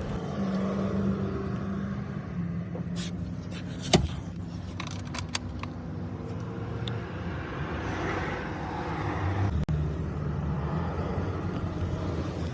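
Toyota Corolla engine running with a steady low hum, and a sharp click about four seconds in.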